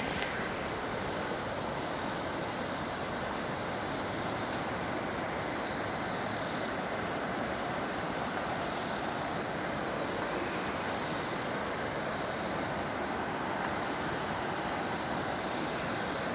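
The Bhagirathi River rushing over a rocky, boulder-strewn bed: a constant, even sound of fast-flowing water.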